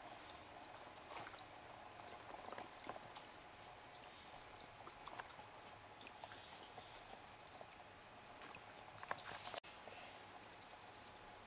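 Faint trickling and pouring of a shallow stream, with scattered small ticks and a few short, high peeps.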